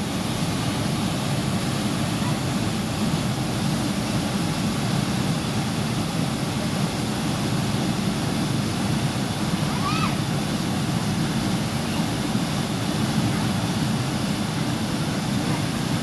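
Waterfall plunging into a pool, a steady rushing roar with no let-up. About ten seconds in, a brief voice calls out over it.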